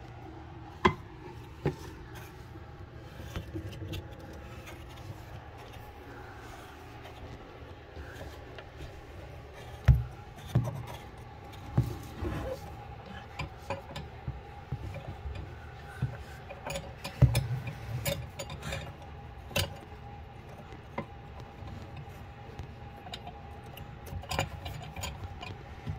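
Scattered knocks, taps and clinks of hands working on a bathroom faucet's metal fittings under a sink basin. A few louder thumps come about ten and seventeen seconds in, over a steady hum.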